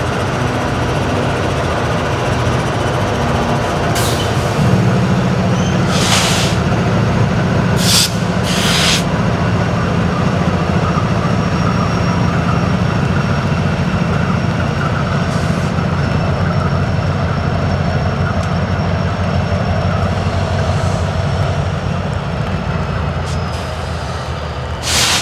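BNSF diesel-electric freight locomotives passing slowly at close range, their engines running in a deep steady drone that grows stronger about five seconds in. Several short bursts of hiss come between about four and nine seconds in and again at the end, and a faint high whine runs through the second half.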